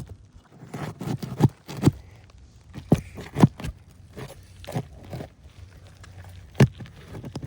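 Irregular sharp knocks, clicks and scraping from a roof snake working nails loose beneath an asphalt shingle, about half a dozen distinct strikes.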